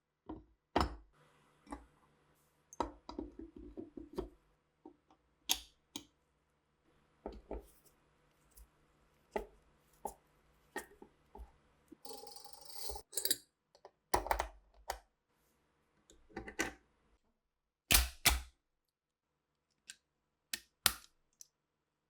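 Arisaka rifle parts being handled and worked by hand: scattered sharp clicks and knocks, with a short hiss about twelve seconds in.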